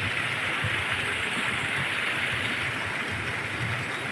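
Steady rush of falling and flowing water from a waterfall and stream.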